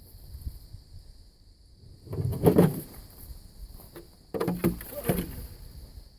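Insects chirring steadily at one high pitch, with two louder bursts of rustling, scraping noise, about two seconds in and again near four and a half seconds.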